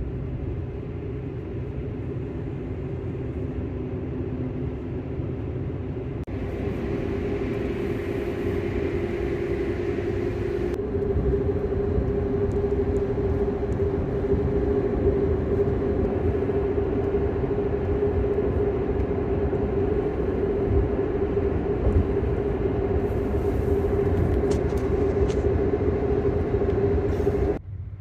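Road noise heard from inside an electric car's cabin, driving slowly on a snowy highway on snow tyres: a steady tyre rumble with a steady hum over it, growing louder over the first ten seconds or so.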